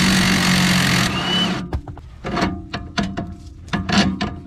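Impact wrench running for about a second and a half, spinning loose a bolt on a BMW X5's front suspension, then a string of short clicks and knocks from the tool and metal parts.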